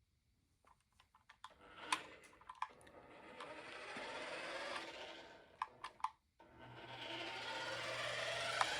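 Small electric motor and gears of a Jada Back to the Future remote-control car whirring as it drives, building up, cutting out briefly about six seconds in and starting up again. Scattered sharp clicks come before each run.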